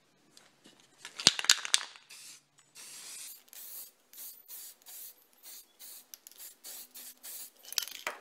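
A loud rattling clatter about a second in, then an aerosol can of flat black spray primer hissing in a string of short bursts, about two a second, with another brief clatter near the end.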